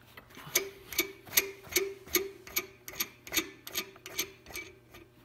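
Steel nut being turned by hand on a threaded bolt clamped in a bench vise, making about a dozen regular metallic clicks, two or three a second, each with a short ring. The clicks fade in the last second.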